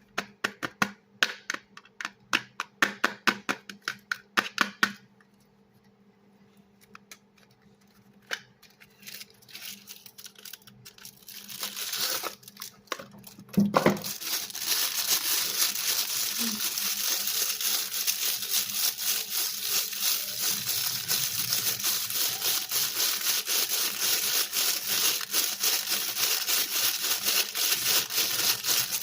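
Dry soap crunching under hand work: a quick run of sharp crisp clicks, a short lull with a few scattered ones, then from about halfway a steady dense crackling crunch of soap being crushed.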